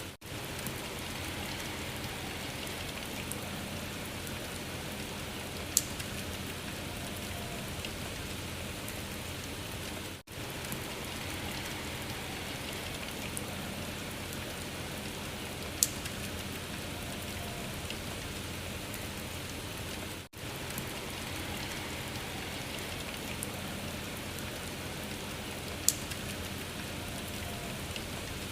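Steady rain pattering, a short recording looped about every ten seconds with a brief drop at each seam. A sharp click comes once per loop, three times in all.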